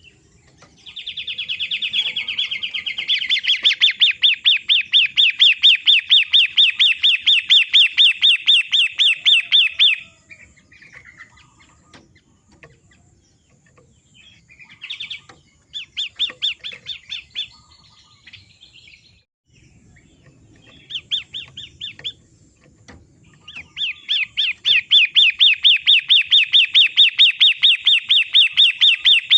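Long-tailed shrike calling: long runs of fast, evenly repeated harsh notes, about six a second. Two long runs are separated by a gap of shorter bursts and scattered calls.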